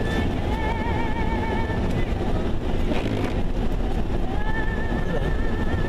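Steady engine and road rumble of a vehicle on the move, with music playing over it: a held, wavering note comes in about half a second in and again near the end.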